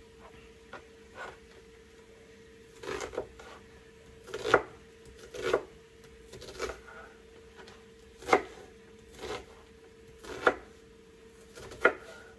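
A knife chopping an onion on a wooden cutting board: about ten sharp knocks at uneven spacing, roughly one every second or so.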